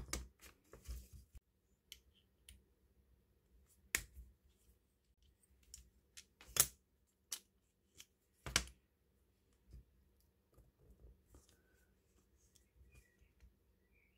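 Quiet handling noises of small parts and paper: scattered light clicks and taps, with sharper clicks about four, six and a half, and eight and a half seconds in.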